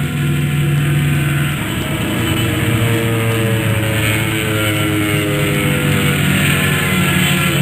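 Car engine running hard and accelerating, with a steady rushing noise over it.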